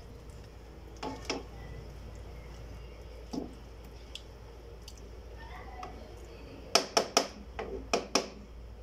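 Spatula stirring chicken pieces through thick yogurt masala in a nonstick pan with soft squelching, over a steady low hum. About seven seconds in comes a quick run of five or six sharp taps, the loudest sounds here.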